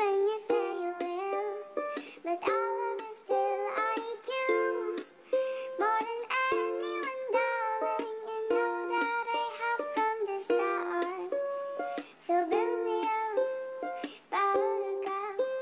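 Background music: a quick tune of plucked notes.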